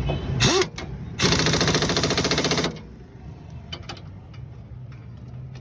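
Impact wrench hammering: a short burst about half a second in, then a loud, even, rapid rattle for about a second and a half, followed by light scattered clicks.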